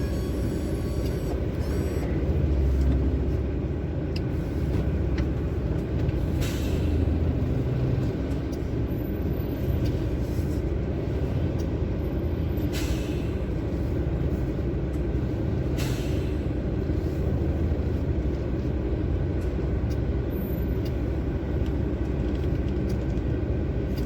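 Heavy truck driving: a steady low engine and road rumble, with three brief sharp noises along the way.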